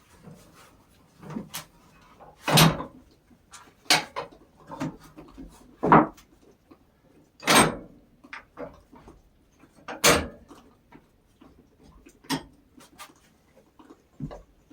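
Irregular wooden knocks and clunks of hard maple boards and the log being handled and shifted on a portable bandsaw mill. There are about a dozen knocks, four of them clearly louder.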